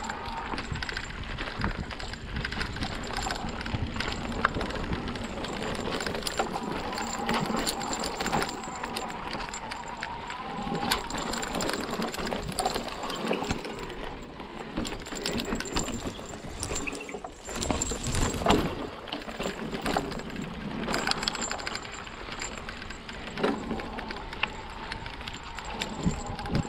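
Hardtail e-mountain bike ridden over a dry dirt forest trail: steady tyre noise on the ground with frequent rattles and knocks from the bike over bumps. A faint wavering whine comes and goes.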